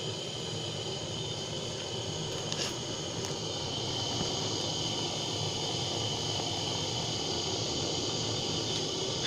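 Small hand-held butane torch burning steadily, its flame playing on a crucible to melt borax and silver solder, with a faint tick about two and a half seconds in.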